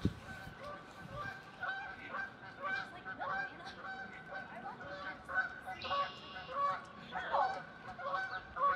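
Geese honking: a string of short calls, a few of them gliding in pitch.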